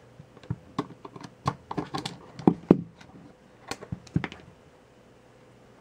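Small irregular clicks and taps of a screwdriver working the battery-compartment screws out of a plastic multimeter case, with the parts being handled; the clicking stops about four seconds in.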